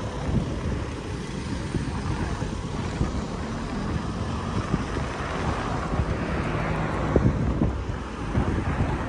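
Wind buffeting the microphone over street traffic, growing louder for a moment about six seconds in as a vehicle passes.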